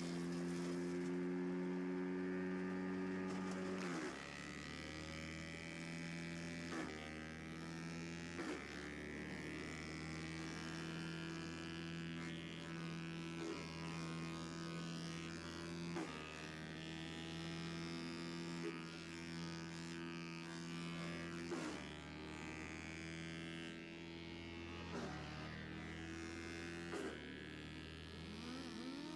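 Vermeer BC600XL wood chipper's 25 horsepower gasoline engine running steadily. Its note sags and recovers several times as brush is fed in, with a few sharp cracks along the way.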